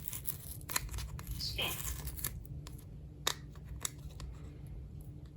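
A price tag sticker being scraped and peeled off a weather radio's case: scattered short scratches and clicks, with one longer tearing scrape a little after a second in.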